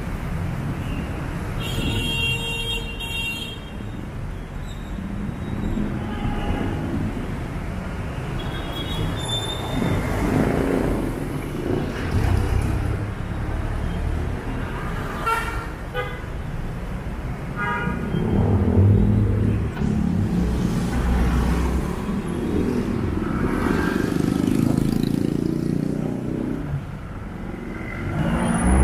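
Busy street traffic: motorcycles, jeepneys and tricycles running past with a steady low rumble, and several short horn toots, the clearest about halfway through.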